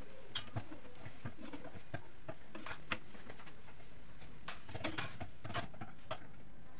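Scattered, irregular pops and ticks of ghee and oil crackling under a methi paratha roasting on a hot iron tawa.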